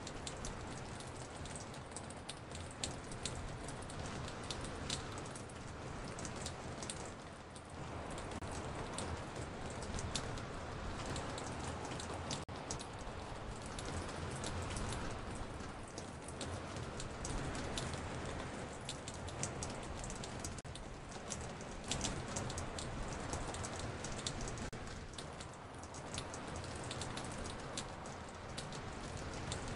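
Rain dripping onto a porch, recorded and layered so that many separate drops tick over a steady hiss of rain.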